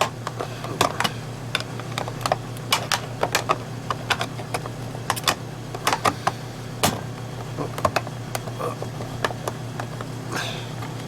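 Irregular clicks and taps, several a second, from hands working a light fixture and its switch, over a steady low hum.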